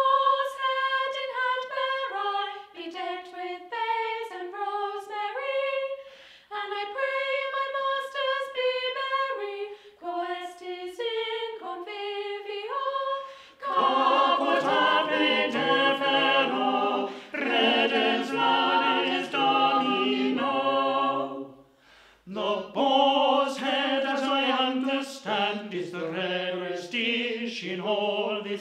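Mixed chamber choir singing unaccompanied. Upper voices sing alone at first, and lower voices join about halfway for full harmony. There is a brief pause about three-quarters of the way through before they sing on.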